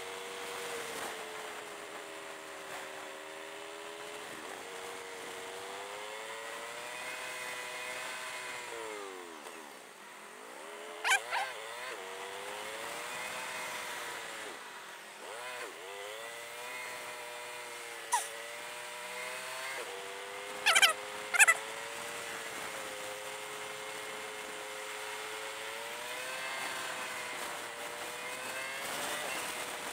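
Kawasaki ER-6n parallel-twin motorcycle engine running under way, heard through a helmet camera with wind noise. Its pitch rises and falls with the throttle and sags twice as the bike slows. A handful of sharp clicks or knocks stand out around the middle.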